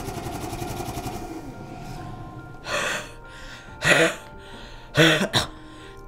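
A high-frequency chest wall oscillation therapy vest pulsing rapidly, fading out about two seconds in. Then a series of about four forceful huff coughs, short open-mouthed bursts of breath about a second apart, done to move mucus up from the lungs in cystic fibrosis airway clearance.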